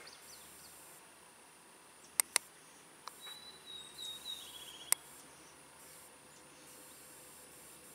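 Faint outdoor background with several sharp clicks of the GOGOGO GS03-1000M laser rangefinder's button being pressed as it tries, without success, to range a distant target. A thin high call with a short trill sounds about three to four seconds in.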